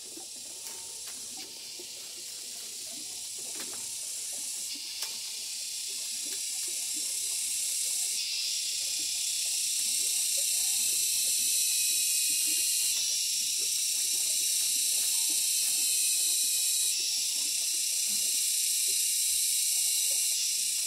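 A loud, steady high-pitched hiss that grows louder in a few steps, with faint clicks of split bamboo strips being laid down and set against each other.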